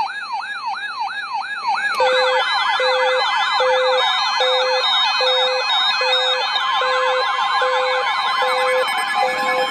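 Electronic siren-style alert tones: a rising-and-falling wail repeating about two and a half times a second. About two seconds in, several more overlapping sweeps and a low beep pulsing about one and a half times a second join it. A steady high tone comes in near the end.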